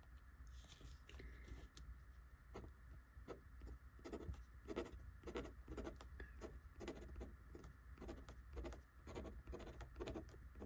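Fountain pen nib faintly scratching across paper in many short, irregular strokes as words are written by hand.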